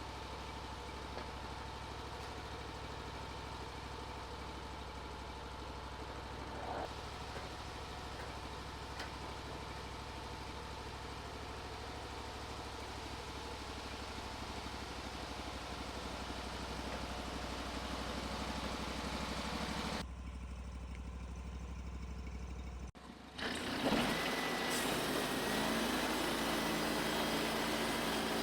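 Portable sawmill's gasoline engine running steadily. The sound changes abruptly about 20 seconds in, drops out briefly near 23 seconds, then comes back louder with a steadier hum.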